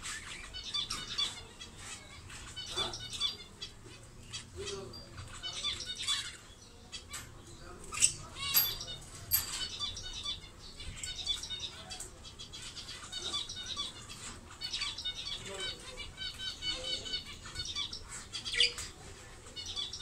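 Pet budgerigars warbling and chattering in quick runs of high chirpy notes, with scattered sharp clicks and brief wing flutters.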